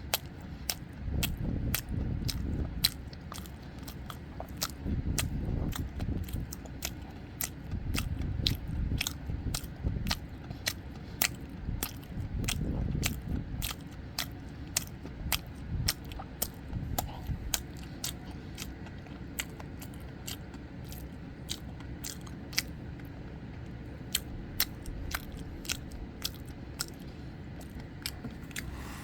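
Close-up chewing of soboro (streusel-topped) red bean bread, with frequent sharp wet mouth clicks all through. The soft low chewing noise is heavier in the first half and thins out later.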